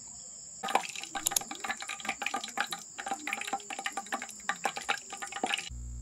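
Cooking oil being poured into an electric pot cooker: a dense, irregular run of splashing starts about a second in and cuts off abruptly near the end.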